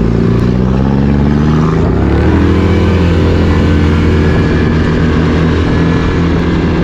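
Four-wheeler (ATV) engine running steadily under throttle on the road, its pitch shifting about two seconds in and then holding, with wind rushing past.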